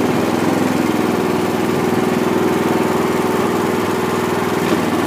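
The Harbor Freight 65162 trencher's engine running steadily at about 2,400 RPM, driving its hydraulic pump while the boom cylinders raise and lower the arm.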